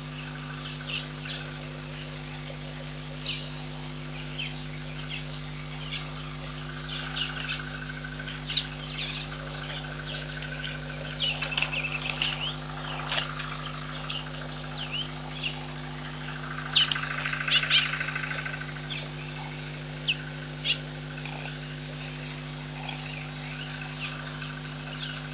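Wild birds chirping and calling in short notes, busier in two spells around the middle and about two-thirds through, with a buzzing trill coming in twice, over a steady low hum.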